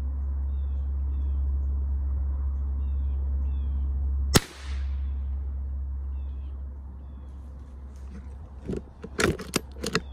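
A single sharp gunshot crack from a hunting rifle about four seconds in, ringing off briefly, over a steady low rumble and short repeated high chirps. Near the end come a cluster of sharp knocks and clicks as the gun and camera are handled.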